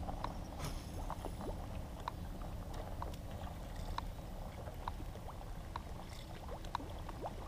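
Scattered small water plinks and pops from bluegills rising to take food at the pond surface, several short sharp ones over a low steady rumble.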